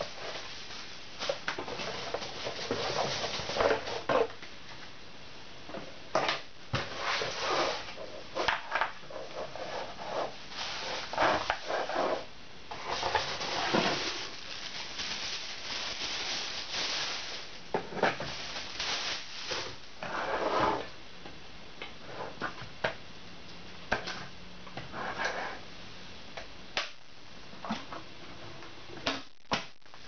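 Unpacking an electric kettle: cardboard box flaps scraping and a thin plastic bag crinkling and rustling in irregular bursts, with sharp clicks and knocks between.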